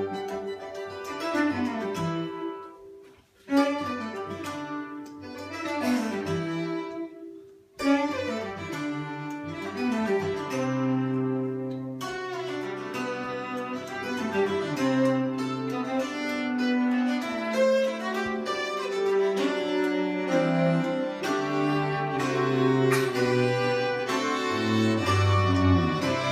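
Acoustic trio of hammered dulcimer, violin and cello playing a tune, the dulcimer's struck notes ringing among bowed violin and cello lines. The music breaks off briefly twice in the first eight seconds, then fuller low bowed notes come in from about ten seconds.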